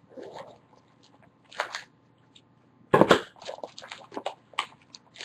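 Cellophane wrapper on a box of baseball cards crinkling and tearing as it is pulled open, in short irregular crackles with the loudest rip about three seconds in.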